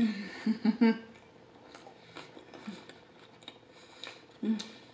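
A person chewing a mouthful of cheeseburger with closed lips, giving a few short hummed "mm" sounds in the first second and again near the end, with small wet mouth clicks in between.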